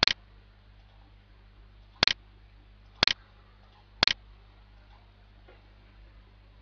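Computer mouse button clicked four times, once at the start and then three more about a second apart from two seconds in, each a short sharp click, over a faint steady hum.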